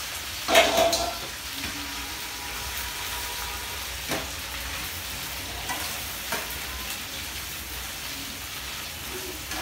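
Snails frying in hot oil in a metal frying pan: a steady sizzle, with a loud clatter about half a second in and a few light knocks as a metal spoon stirs them.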